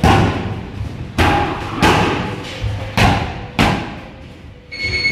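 Boxing gloves hitting a large round padded punching shield (gobernadora): about five heavy punch impacts, some coming in pairs about half a second apart, each ringing briefly in the room. A steady high beep starts near the end.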